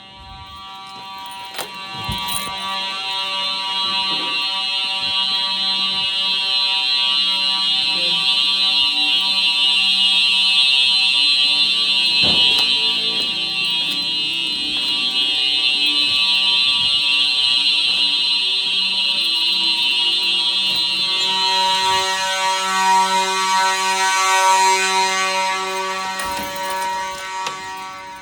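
Simplex fire alarm horns sounding steadily during an alarm test, growing louder over the first few seconds. The blend of tones changes about three quarters of the way through.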